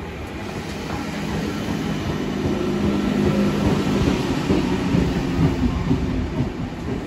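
NSW TrainLink V set double-deck electric train pulling into the platform, its running noise and low hum growing louder as the carriages pass close by, with a few wheel clacks over the rail joints near the end.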